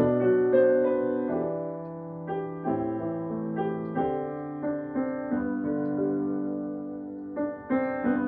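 Solo piano playing a slow, gentle original piece in held chords, each note ringing and fading. The playing softens through the middle and swells again near the end.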